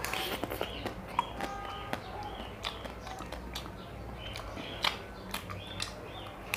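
Close-up mouth sounds of eating a chocolate-coated ice cream bar: wet bites, slurps and lip smacks, heard as a run of short sharp clicks and squeaks.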